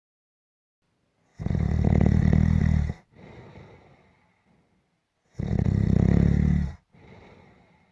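A sleeper snoring: two loud, rattling snores, each followed by a softer, fading breath, with a silent pause before each.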